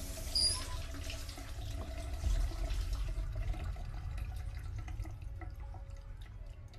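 Shower water running and then shut off at the tap, the flow dying away in the first few seconds and leaving scattered drips of water on the tiles.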